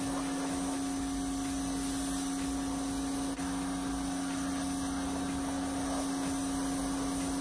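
Pressure washer running and spraying: a steady motor-and-pump hum with the hiss of the water jet. The hum falters for a moment a little under halfway through.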